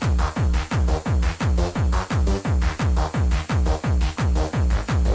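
Old-school hardcore rave music from a DJ mix: a steady, fast kick drum at about three beats a second, each hit dropping in pitch, under electronic synth parts.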